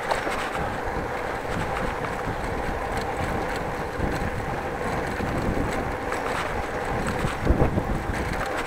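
Wind buffeting the microphone of a bike-mounted action camera while riding over brick paving, with tyre rumble and many small rattling clicks from the bicycle. A few louder knocks come about seven and a half seconds in.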